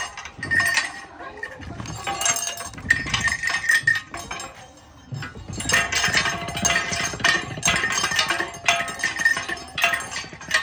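Hand-cranked sugarcane juice crusher clinking and jingling as its wheel is turned: repeated clusters of metallic ringing, each about a second long with short breaks between.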